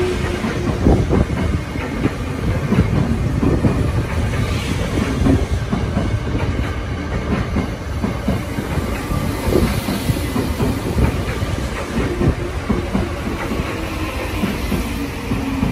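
Tokyo Metro Tozai Line electric train running along elevated track, its wheels clattering over the rail joints. A motor whine falls in pitch at the start and again near the end.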